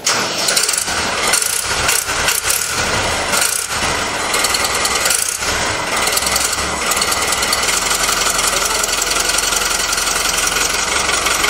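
New Holland TT75 diesel tractor engine starting up and running, uneven for the first few seconds, then settling into a steady idle.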